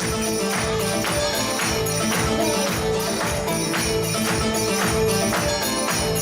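Electronic dance music with a steady beat and jingling, tambourine-like percussion over sustained pitched tones.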